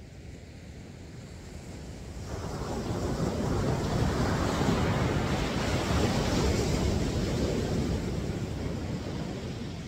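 Ocean surf: a wave breaking and washing up the beach, swelling in about two seconds in and fading away near the end.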